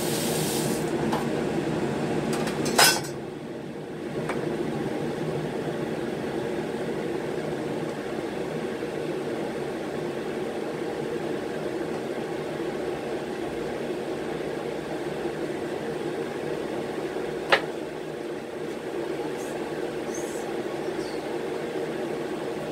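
Washing up at a kitchen sink: the tap runs briefly at the start, then dishes and utensils knock and clink, with a sharp knock about three seconds in and another about two-thirds of the way through, over a steady low hum.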